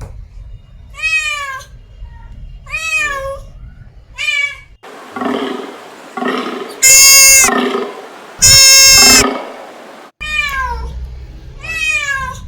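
Domestic cat meowing repeatedly, short calls that rise and then fall in pitch. Partway through, a different stretch of sound carries two much louder, shrill, held calls about a second and a half apart. The cat's meows then resume.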